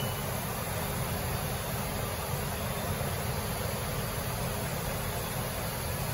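Steady machinery running noise: an even hiss over a low rumble, with no distinct pitched whine.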